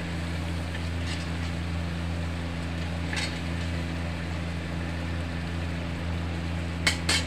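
Metal spatula scraping and knocking against a metal kadhai as a thick curry is stirred: a few light scrapes, then two sharper ones close together near the end. A steady low machine hum runs underneath.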